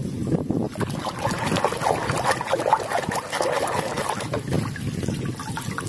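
Muddy water sloshing and splashing in a plastic basin as a hand swishes a toy excavator through it to wash it, with small irregular clicks and knocks.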